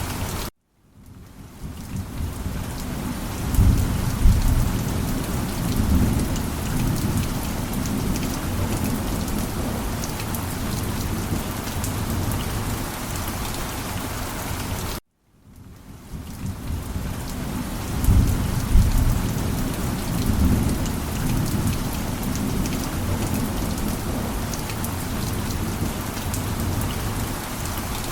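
Steady heavy rain with low rolling thunder: a rumble of thunder a few seconds in and another about halfway through. The sound cuts out for a split second just after the start and again at the midpoint, then fades back in, the seam of a looped recording.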